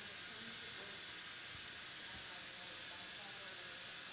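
Steady, even hiss of background noise on a factory floor, with no distinct event.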